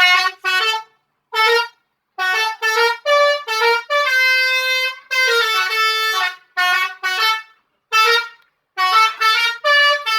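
Telolet bus horn, a set of electric air-horn trumpets playing a tune: about fifteen short toots at changing pitches, with two longer held notes in the middle and short silences between.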